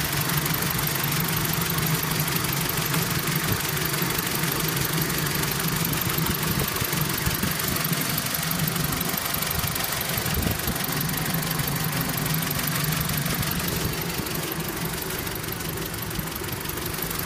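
Freshly rebuilt BMW E46 3 Series engine idling steadily, with no revving.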